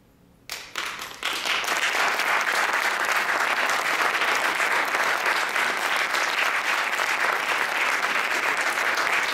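Audience applause: a brief hush, then the first few claps about half a second in, swelling within a second into steady, dense clapping.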